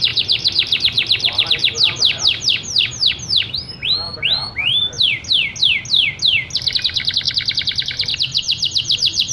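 Domestic canary in full song: fast runs of short, falling high notes, breaking about four seconds in into a few slower slurred whistles, then a very rapid, even rolling trill from about six and a half seconds.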